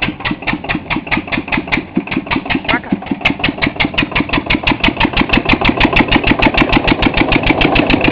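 Single-cylinder, hopper-cooled engine of a homemade walk-behind tractor chugging in an even beat of exhaust pulses while driving. About three seconds in it picks up speed and gets louder, settling at roughly seven beats a second.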